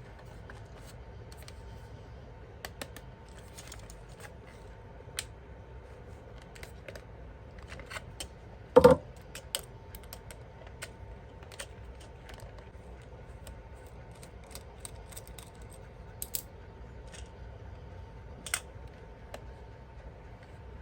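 Scattered light clicks and taps, like small objects and packaging being handled, with one louder knock about nine seconds in, over a faint steady hum.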